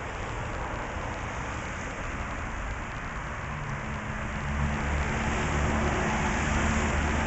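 Steady outdoor background noise, with a motor vehicle's engine coming in and growing louder about halfway through.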